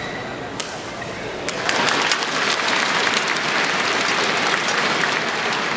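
A badminton racket strikes the shuttlecock sharply about half a second in, and again about a second later. The arena crowd then breaks into applause that carries on, greeting a point won.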